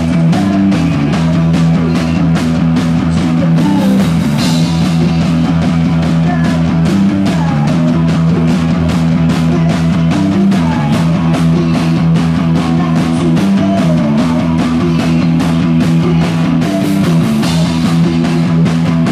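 Rock band playing live at high volume, close to the stage: sustained distorted guitar notes over a fast, steady drumbeat with crashing cymbals.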